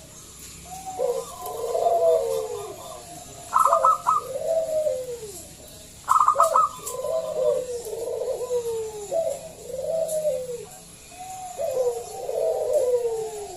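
Zebra dove (perkutut) singing a continuous series of rolling, arched coos. About three and a half seconds in, and again at six seconds, it breaks into short bursts of quick, higher stuttering notes.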